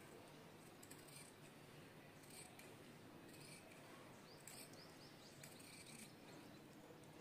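Faint snips of tailoring scissors cutting through blouse fabric along chalk lines, a short crisp cut about every second.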